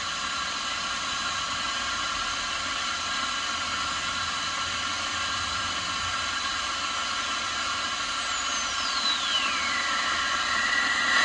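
Hiss and static from a Rycom R1307/GR VLF receiver's speaker while it is tuned across the band, with several steady whining tones underneath. About eight seconds in, a heterodyne whistle slides down in pitch and settles into a steady tone as a signal is tuned in.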